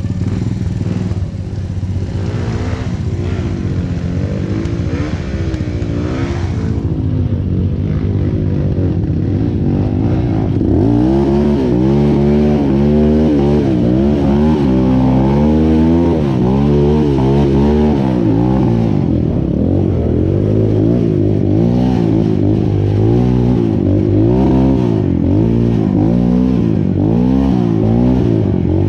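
Motorcycle engine running under way, its pitch climbing and dropping over and over as the throttle is opened and closed. It gets louder about eleven seconds in.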